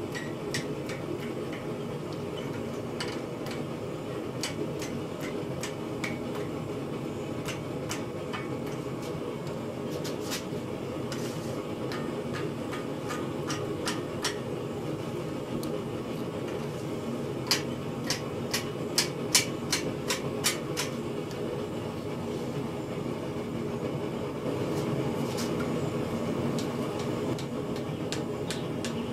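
Light hammer taps on metal over a steady mechanical hum, with a quick run of sharper, louder strikes a little past the middle.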